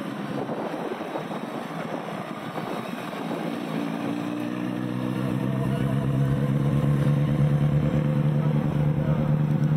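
A motor engine running at a steady pitch, growing louder from about four seconds in as it comes closer, over a steady rushing noise.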